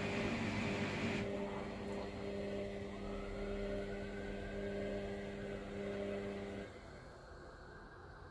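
Hoover washer-dryer running with a steady motor hum and a hiss. The hiss drops about a second in, and the hum cuts out near the end.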